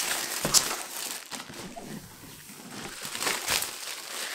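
Clear plastic wrapping pulled off a large cardboard game box, crinkling with several sharp crackles, the loudest about half a second in.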